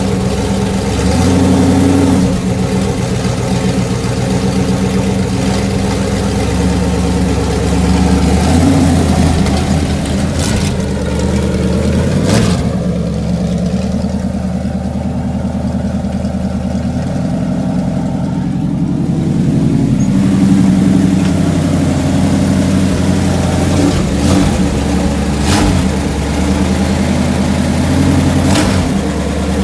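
Chevrolet 454 big-block V8 idling, its pitch rising and falling a few times with light blips of the throttle, with a few short sharp knocks.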